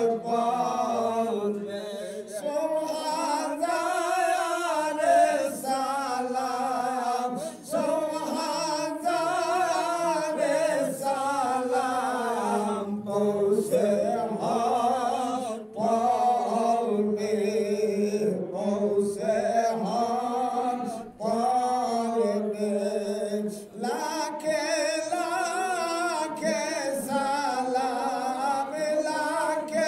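A man's voice chanting a devotional call for mercy in long, wavering, drawn-out phrases, with short breaks between them.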